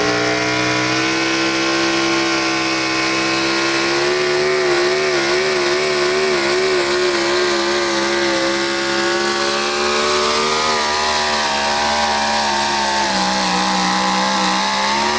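Pro stock 4x4 pulling truck's engine held at high revs under heavy load through a sled pull, its pitch wavering for a few seconds midway and sagging slightly later on. At the very end the revs fall away sharply.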